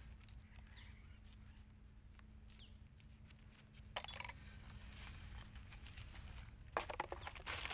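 Mostly faint, with a few soft high chirps in the first half, a rustle about four seconds in, and then crunching footsteps on dry litter and plastic rubbish near the end.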